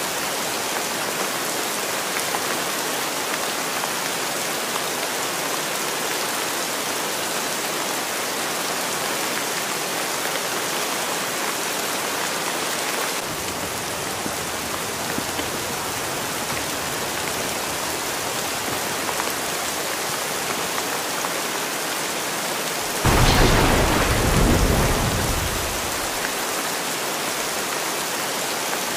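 Steady rain falling, with a roll of thunder about three quarters of the way through that rumbles for about three seconds and fades.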